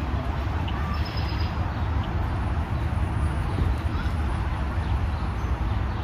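Steady low outdoor rumble with a few faint, short bird chirps; one thin high call comes about a second in.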